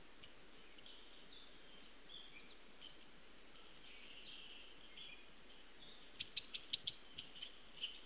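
Faint morning birdsong from several birds, thin high calls running on. About six seconds in comes a quick run of about six sharp, high chips, with a few more near the end.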